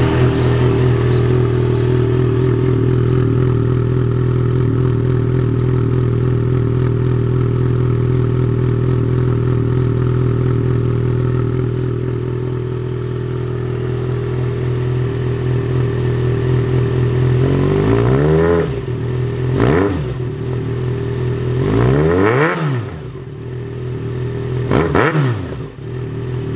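2011 Yamaha XJ6 Diversion F's 600 cc inline-four idling steadily just after a cold start, heard through an aftermarket end can. In the last third it is blipped several times, the pitch rising sharply and dropping back to idle with each rev.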